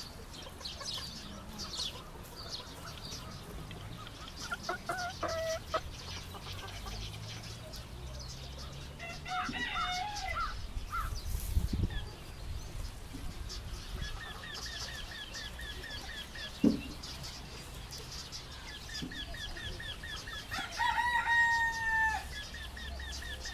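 Chickens clucking, with a rooster crowing near the end and a fast run of high, evenly spaced chirps in the second half.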